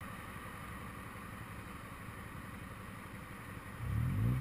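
Motorcycle engine idling steadily, heard from the rider's seat, with an engine revving briefly and rising in pitch near the end.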